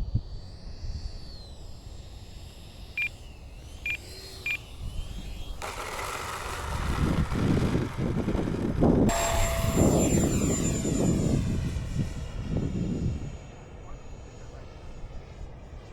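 Electric ducted-fan model jet flying past: its rushing fan noise comes in suddenly about six seconds in, is loudest around the middle, and sweeps away, fading over the last few seconds.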